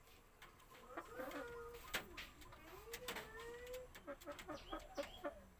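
Domestic chickens in a wire coop calling: two drawn-out notes, then a quick run of short clucks near the end, with a few sharp clicks between.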